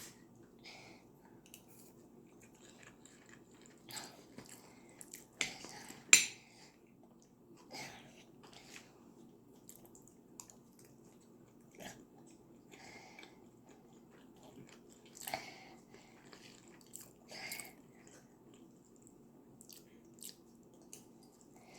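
Close-miked eating of rice, turkey and plantain: scattered bites, crunches and chewing, with short clicks of cutlery or dishes. A sharp click about six seconds in is the loudest sound, and a faint steady low hum lies underneath.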